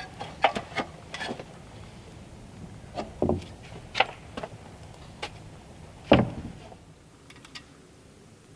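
Scattered, irregular knocks and clunks from hand work on the cabin's board-and-batten siding, the loudest about six seconds in.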